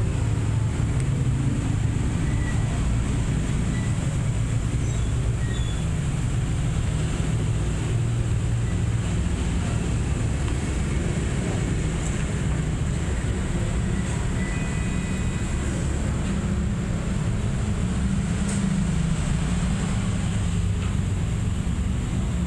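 Steady low background rumble with no clear start or stop, of the kind made by distant traffic or a running engine, with faint brief high tones now and then.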